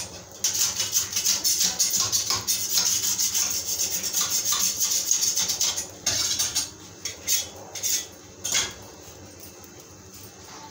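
Dosa batter sizzling and crackling on a hot non-stick pan, a dense hiss of fine rapid crackles. It cuts out sharply about six seconds in, leaving a few clicks and knocks.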